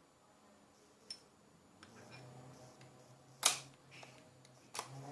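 Handling clicks from a Milwaukee M18 CHX SDS hammer drill's chuck and bit being fitted: a few light clicks, then one sharp click about three and a half seconds in and another near the end.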